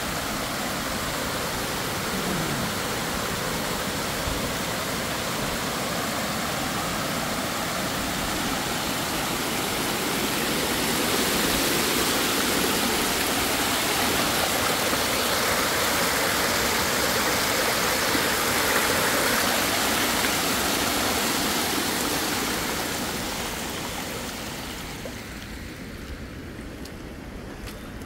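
Water from an overflowing reservoir running over its spillway in a shallow sheet, a steady rushing sound. It grows louder midway and fades down near the end.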